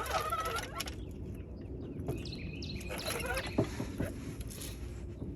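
Metal hand tools clicking and clinking, a wrench and socket being worked on hard-to-reach rear wheel hub bolts, in scattered short knocks with a few brief squeaks.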